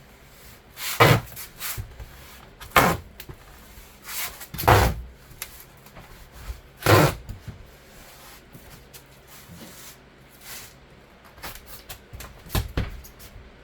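Handling noise from taping foam insulation into a garage door panel: five or six separate short thumps and scrapes, a second or more apart, as tape and foam are pressed against the door.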